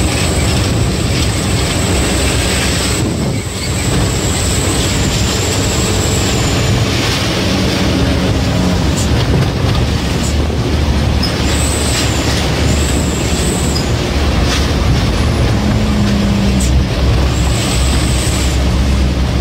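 Truck's diesel engine and road noise inside the cab while driving, a steady loud rumble with rattling. A thin high-pitched whistle comes and goes several times.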